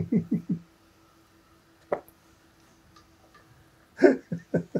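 A person's voice making rapid, repeated short nonsense syllables at about six a second, in one run at the start and another near the end. Between them it is quiet apart from a faint steady hum and one sharp click about two seconds in.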